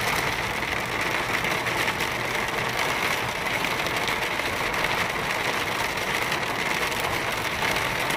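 Heavy rain pattering steadily on a car's windshield and roof, heard inside the cabin over the car's engine and road noise.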